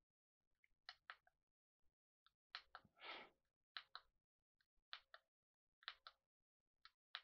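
Faint clicks of the push-button switch on a Capstone night/power-failure light, pressed about five times, each press a quick double click, cycling the light through its brightness and blinking modes.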